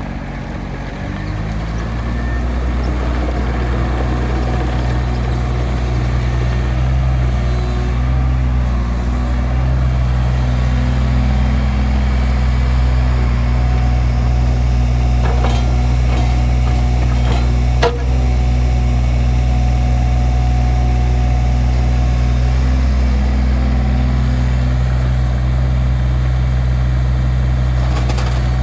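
Diesel engine of a SANY SY26U mini excavator running steadily, rising in level over the first couple of seconds. A few sharp metallic knocks come a little past the middle.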